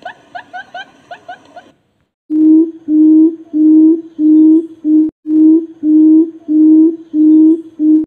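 Barred buttonquail calls. A quiet run of quick, short higher notes, then, after a brief pause, a series of about ten loud, low hooting booms at a steady beat of roughly two a second.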